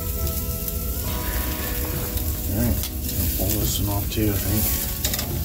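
Marinated sirloin steak sizzling on the hot grate of a charcoal kettle grill, with metal tongs handling it near the end.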